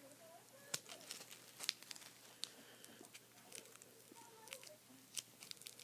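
Faint crinkling and crackling of tape handled by fingers, with many small sharp clicks scattered irregularly as it is wrapped and pressed down.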